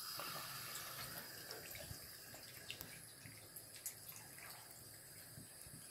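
Bathtub faucet running in a thin, steady stream, faint, with a few soft clicks as a Keeshond laps at the water.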